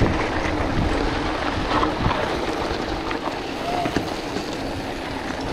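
Mountain bike rolling fast over a gravel road: steady tyre crunch with small rattles and knocks from stones and the bike, under rumbling wind noise on the microphone.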